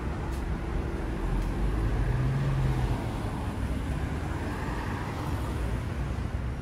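City road traffic passing, a steady low rumble of vehicle engines and tyres, with one vehicle's engine swelling louder for about a second around two seconds in.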